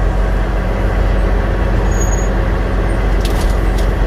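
Semi truck's diesel engine idling steadily, heard from inside the cab, with a few light clicks near the end.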